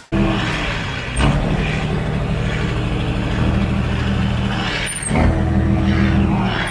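Tractor diesel engine running steadily, heard close to its exhaust stack; the engine note shifts about a second in and grows louder about five seconds in.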